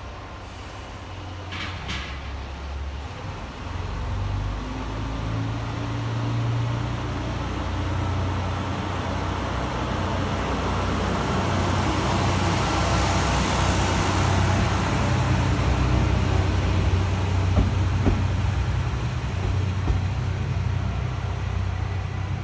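Kanto Railway KiHa 2000 diesel railcar pulling away from the platform: its diesel engine revs up and the car rolls past, getting louder to a peak in the middle and staying loud as it runs on. A brief high sound comes about two seconds in, and a few clicks come near the end.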